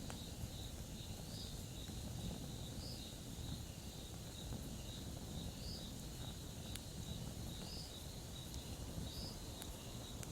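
Campfire burning with a low steady rumble and a few sharp crackles, while crickets chirp in an even rhythm of a few chirps a second.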